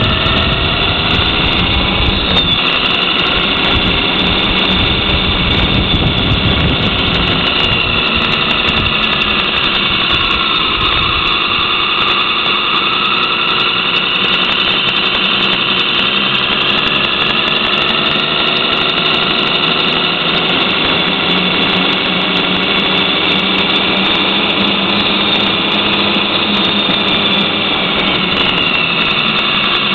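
Electronic diesel truck engine sound from the sound system of a 1:7-scale RC Kenworth semi, played while the truck drives. It is a steady engine note with a high turbo whine, its pitch slowly rising and falling as the simulated revs change.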